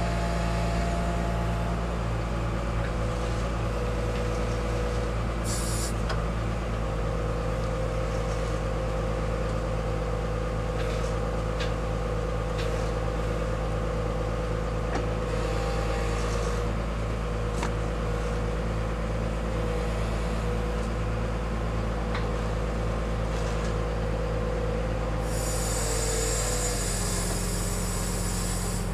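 Wheel loader's diesel engine running steadily as the machine drives, with a steady whine over the engine note. Near the end the engine note shifts and a hiss comes in.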